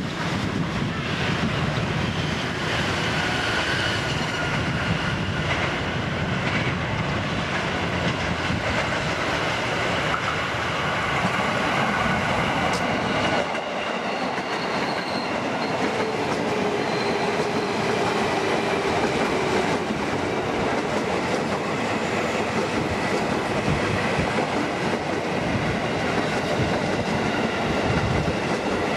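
Electric commuter trains passing at trackside, starting with a JR 205 series set: wheels clattering and rumbling over the rails with a faint steady motor whine. About 13 seconds in the sound changes abruptly to another electric train passing close by.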